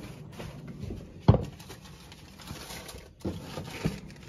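Knocks of items being handled and set down: one sharp knock a little over a second in, then two softer knocks near the end.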